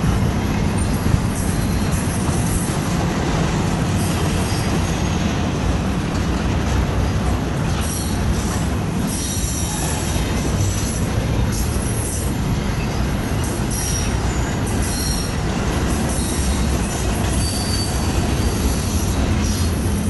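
Double-stack container freight cars rolling past with a steady rumble of steel wheels on rail, and short high-pitched wheel squeals coming and going from about eight seconds in. Heard from inside a car, with wind noise.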